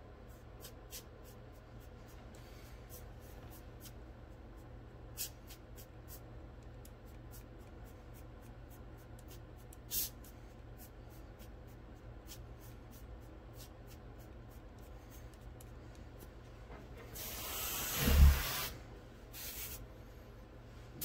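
Airbrush spitting out short bursts of air and paint as the crimped air hose is eased off, the built-up black paint splattering out in droplets for a stone effect. About three-quarters through comes a longer, much louder hiss of air with a thump at its peak.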